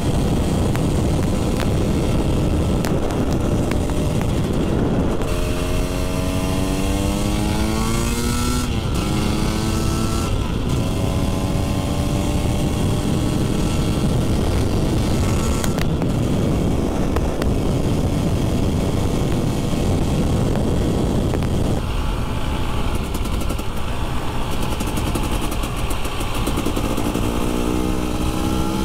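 Husqvarna two-stroke motorcycle engine pulling at road speed, its pitch rising in a few climbs through the revs and gears with steadier cruising stretches between. Heavy wind rush runs under it throughout.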